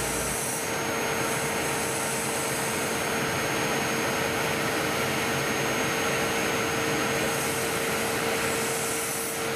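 Milling machine spindle running as its ball-ended cutter rough-machines contours into a block of carbon foam: a steady hiss with a steady mid-pitched whine.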